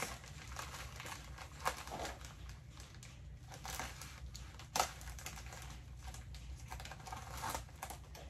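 Plastic mailer bag crinkling and rustling as it is pulled and torn open by hand, with two sharper clicks, the louder about five seconds in.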